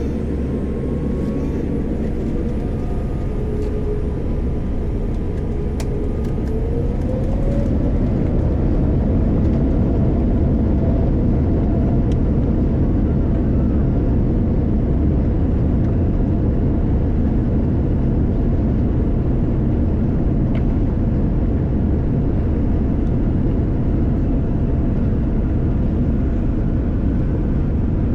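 Boeing 787 Dreamliner cabin noise: a steady low rumble of the engines and airflow. A faint rising whine comes about six seconds in, and the noise grows louder about eight seconds in, then holds.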